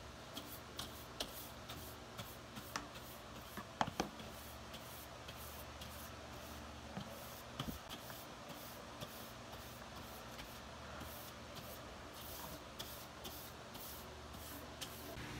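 Small plastic hand brush sweeping crumbs off drafting paper in quick, repeated swishing strokes, with a couple of sharper knocks about four seconds in and again near eight seconds.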